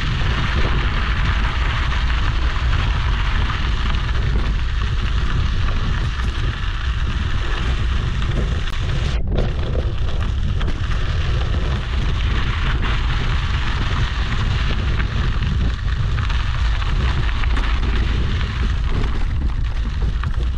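Mountain bike riding a gravel desert trail, heard through a handlebar-mounted GoPro Hero 8: wind buffets the microphone with a constant low rumble, and the tyres crunch and rattle over the dirt and stones.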